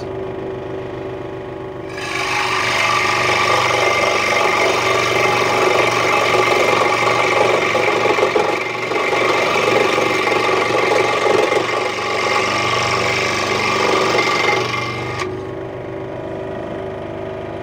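Central Machinery 16-inch scroll saw running at full speed, its reciprocating blade cutting straight through half-inch particle board. The cutting starts about two seconds in, louder and rougher over the motor's steady hum, and stops a couple of seconds before the end, leaving the saw running free.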